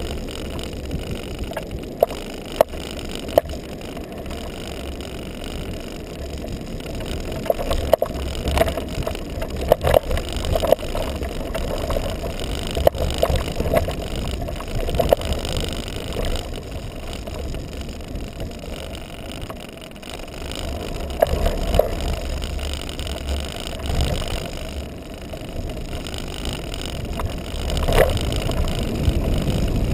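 Libre Vmax kite buggy running fast over firm beach sand: a steady low rumble from its wide balloon tyres and wind on the mounted microphone, with irregular sharp knocks and rattles from the frame.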